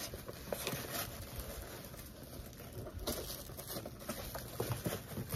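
Soft rustling and a few light knocks of hands rummaging through a packed subscription box.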